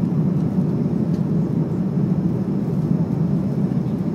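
Steady drone of an Airbus A330-300's Rolls-Royce Trent 700 engines and rushing air, heard inside the passenger cabin, low and even with no changes.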